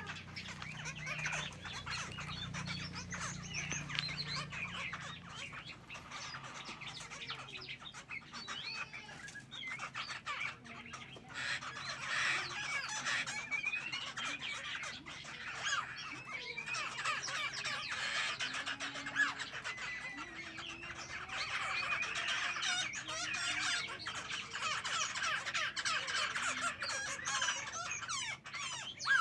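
Songbird singing, a busy run of chirps and warbled phrases that grows denser about twelve seconds in and again toward the end.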